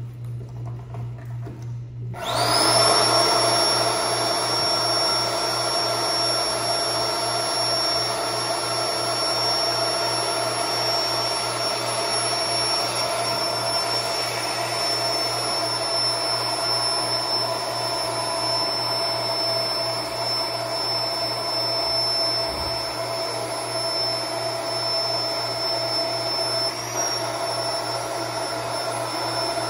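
Small electric air pump switching on about two seconds in and running steadily with a high whine, blowing air into a vinyl inflatable pool.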